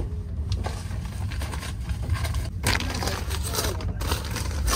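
Steady low rumble of a moving passenger train coach. Over it comes a crinkling, scraping rustle of packaging being handled, a paper bedroll packet and a plastic-wrapped foil tray, densest about two and a half to four seconds in.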